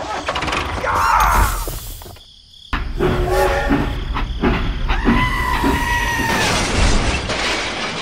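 Sound effects for a toy train colliding with a toy tractor: crashing and shattering sounds, and a steady horn-like tone held for about a second and a half about five seconds in.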